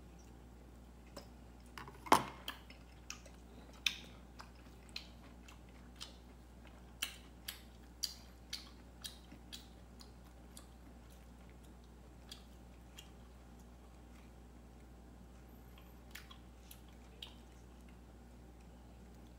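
A cat chewing, with irregular wet smacks and clicks. The loudest comes about two seconds in, the rest follow densely for several seconds and then thin out to a few.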